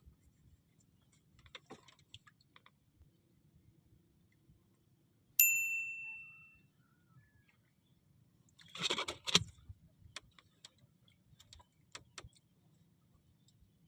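A single bright metallic ding that rings and fades over about a second. A few seconds later comes a brief rustle, then a few light clicks.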